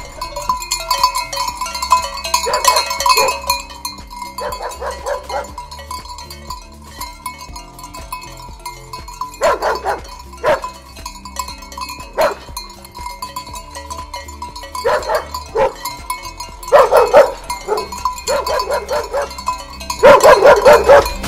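Flock of sheep bleating, with repeated wavering calls coming at irregular intervals and sometimes overlapping; the loudest calls come near the end.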